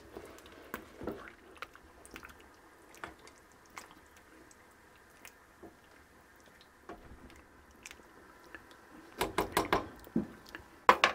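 A plastic spoon stirring beans and stock in a stainless steel saucepan: quiet, with faint scrapes and small clicks, then a run of louder clinks and knocks about nine seconds in and again near the end.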